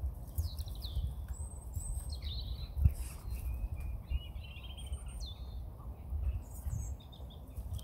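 Several small birds chirping and calling in short, high notes over a low rumble. A short low thump comes about three seconds in.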